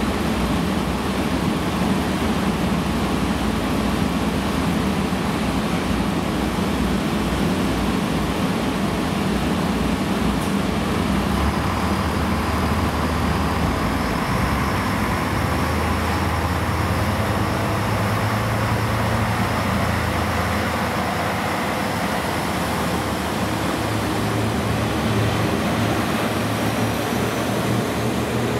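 Yufuin no Mori limited-express diesel train running at a steady rumble at the platform. From about halfway through, its diesel engines pull harder as it moves off and its cars roll past.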